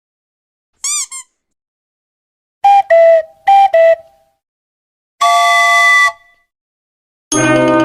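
A string of short comedy sound effects, separated by silence: a quick chirp, then two falling two-note tones, then a steady horn-like blast, and near the end a fuller, lower horn blast that starts.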